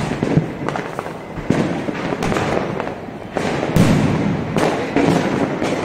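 Fireworks and firecrackers going off: a continuous crackle with a sharp bang every half second or so, and a louder burst about four seconds in.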